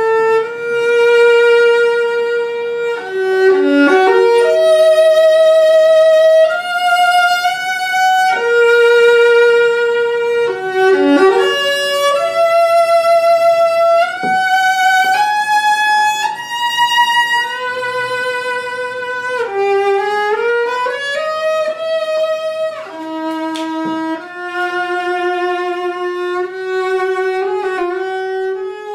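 A carved viola played solo with a bow: a slow melody of long held notes, some joined by slides in pitch.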